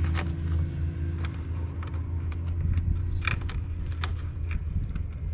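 Scattered light clicks and scrapes of screws being worked out of a plastic sprinkler controller housing, over a steady low hum.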